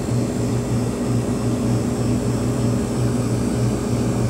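Ice-O-Matic ICE0520HA3 ice machine running: a steady low mechanical hum with a drone that beats about twice a second.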